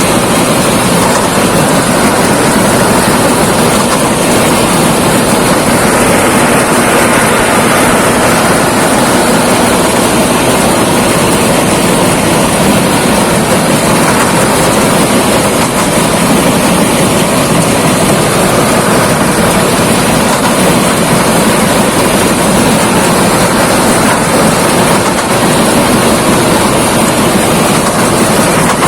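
Thai Seng rice combine harvester running steadily while harvesting, a loud, even engine-and-machinery noise with no breaks.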